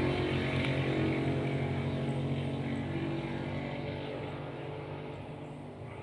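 A motor engine running steadily, slowly growing fainter as it moves away.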